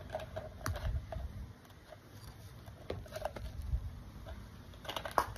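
Scattered light clicks and soft knocks of small plastic toy pieces and packaging being handled, with a sharper click near the end.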